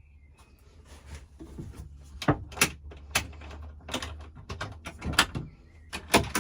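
A run of irregular sharp clicks and knocks over a steady low hum, the knocks coming closer together near the end.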